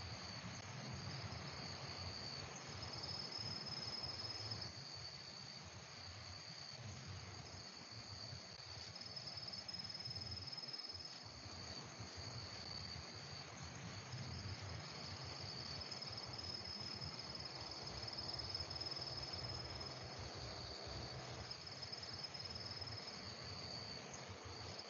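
Insects singing in a high, shrill chorus that pulses on and off, over a steady low rumble.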